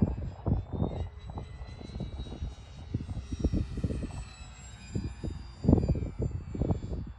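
Electric motor and propeller of a small foam RC P-40 Warhawk in flight: a thin high whine that rises and falls in pitch as the plane moves around the sky. Gusty wind buffets the microphone throughout and is the loudest sound.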